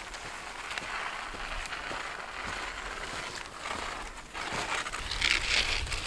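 Crunching in snow: footsteps, with the scrape and rustle of dead branches being hauled across the snow growing louder over the last second and a half.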